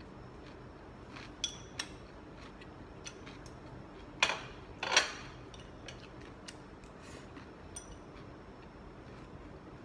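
Cutlery clicking and clinking against dishes while eating: scattered light clicks, some with a brief metallic ring, and two louder clatters about four and five seconds in.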